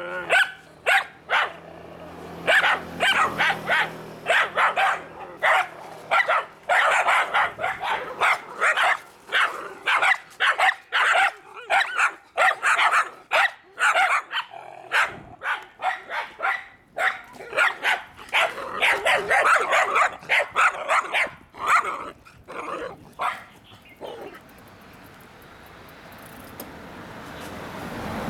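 Several dogs barking rapidly and without pause, bark over bark at two or more a second; the barking dies away about four seconds before the end.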